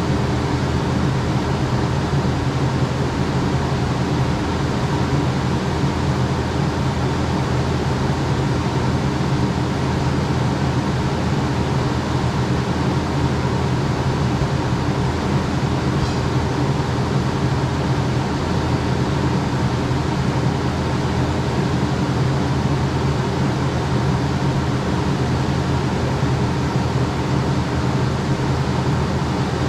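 Kubota SVL95-2S compact track loader running a GyroTrac 500HF forestry mulching head: the diesel engine and hydraulics run steadily at high speed in an unbroken, even drone.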